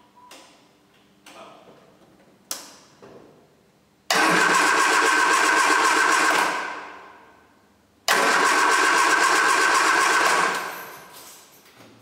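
Triumph Spitfire four-cylinder engine being cranked on its starter twice, each burst about two and a half seconds long, starting suddenly and tailing off. This is a first start attempt after an engine rebuild.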